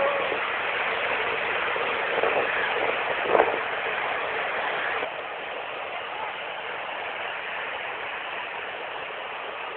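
Steady rush of a waterfall's falling water, with a brief faint sound a little over three seconds in; the rush drops slightly in level about halfway through.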